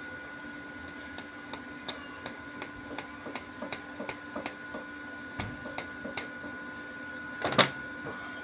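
Light hammer taps on steel, a quick even series of about three strikes a second lasting about five seconds, then a single louder knock near the end, over a steady background hum.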